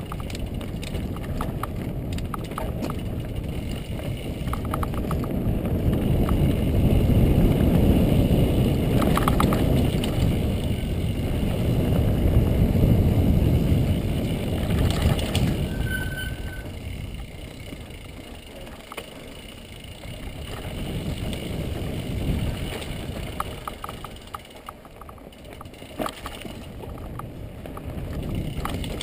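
Mountain bike riding over a rocky forest singletrack, heard from a GoPro on the moving bike or rider: a steady low rumble of wind on the microphone and tyres on the ground, with rattles and knocks as the bike goes over rocks. The rumble is loudest from about six to fifteen seconds in and eases off after that.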